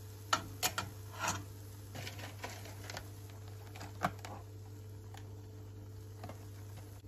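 Kitchen handling sounds: a few light clicks and taps in the first second and a half, then the soft rustle of a cracker packet being picked up and handled, with one more click about four seconds in. A steady low hum runs underneath.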